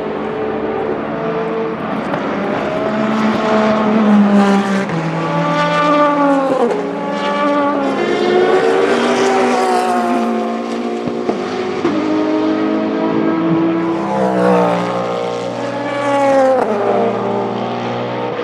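Several endurance race cars passing at speed, their engine notes overlapping. Each note sweeps down in pitch as a car goes by, with clear drops about six seconds in and again near the end.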